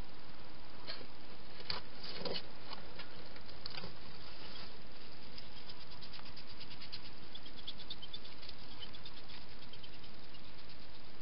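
Quick light clicks and rustles of a wild hedgehog moving through grass and onto paving, over a steady hiss. The clicks come singly in the first few seconds, then as a fast run of fine ticks from about halfway through.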